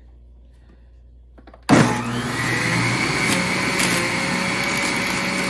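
A Hamilton Beach centrifugal juice extractor is switched on about two seconds in. Its motor starts abruptly and runs steadily with a high whine, shredding carrot pieces, with a couple of sharp knocks partway through.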